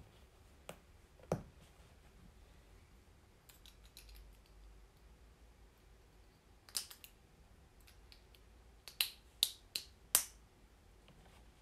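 Small plastic Lego hinge and clip pieces clicking as they are pressed together by hand: scattered single sharp clicks, then several in quick succession near the end.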